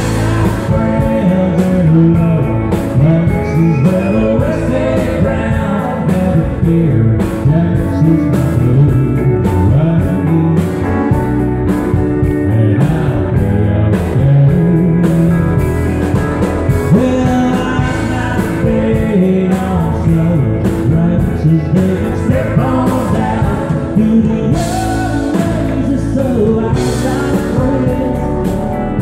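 Live country band playing a song with a man singing lead, backed by acoustic and electric guitars, pedal steel guitar, drums and keyboard.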